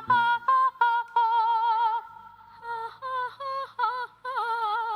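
A woman's voice singing a wordless vocal warm-up, high notes with heavy vibrato. It runs as a string of short notes, then a long held note about a second in, then more short, wavering notes.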